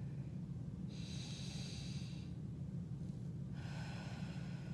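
A woman's slow, deliberate breaths in a core-breathing (diaphragmatic) exercise: one breath about a second in and another near the end, over a steady low hum.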